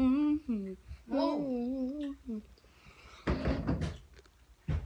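A girl's voice making wordless sing-song sounds in two short phrases, the pitch sliding up and down, then a brief hiss and a short knock near the end.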